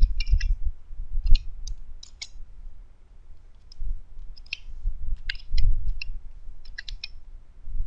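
Typing on a computer keyboard: irregular keystroke clicks in short runs, with dull low thuds under them and a brief pause about three seconds in.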